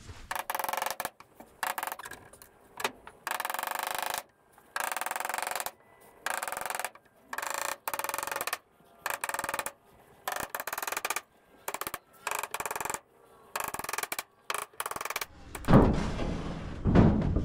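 Short, irregular scraping strokes across the bench top of old hardwood fence palings, one after another with brief gaps. About a second and a half before the end comes a heavy thud.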